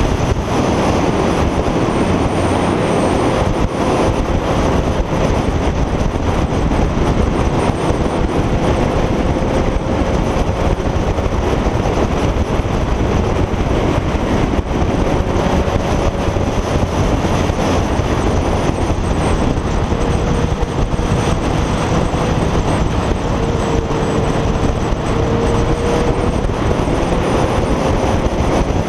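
Kawasaki ZZR motorcycle cruising at a steady speed, its engine note holding nearly even and wandering only slightly up and down, under heavy wind and road noise on the bike-mounted camera.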